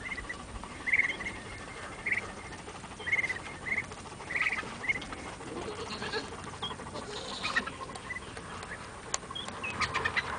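Muscovy ducklings peeping: repeated short calls, one or two a second, with scattered clicks and higher chirps in the later half.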